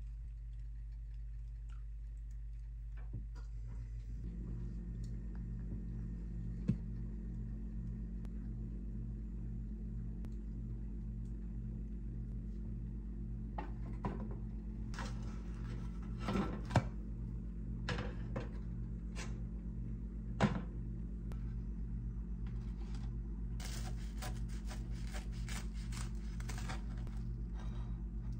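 Cooking and handling sounds: scattered knocks and clicks of a pan and its glass lid, then a quick run of clicks and scrapes near the end as toast is cut with a knife on a wooden board. Under them runs a steady low hum that grows stronger about four seconds in.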